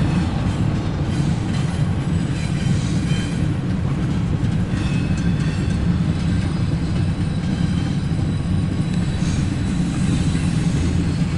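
Double-stack intermodal freight train rolling past, its cars making a steady low rumble on the rails, heard through the windshield from inside a car.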